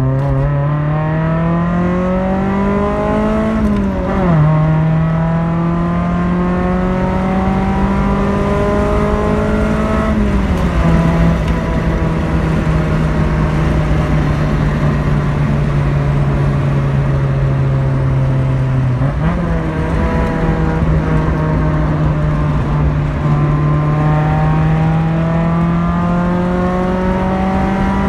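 Honda Civic EG's B18 four-cylinder engine, breathing through a velocity-stack intake fed through the headlight opening, heard from inside the cabin under hard acceleration. The engine note climbs, drops sharply with gear changes about 4 and 10 seconds in, dips briefly around 19 seconds, then climbs again toward about 6,500 rpm near the end.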